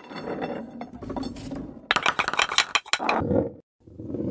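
Sound effects of a ball-run machine: a small ball rolling along tracks, with clinks, clicks and rattles from the mechanism. It breaks off briefly about three-quarters of the way through, then starts again.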